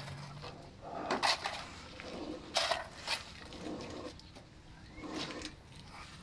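Steel shovel scraping and scooping through a hand-mixed pile of wet concrete on the ground: several separate scrapes.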